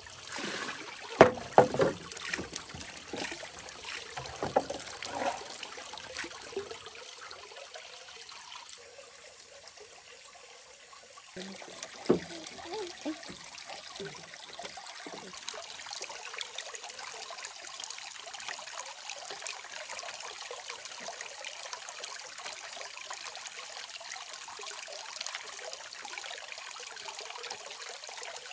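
Steady trickle of running water, with a few sharp knocks in the first few seconds and one more a little before the middle.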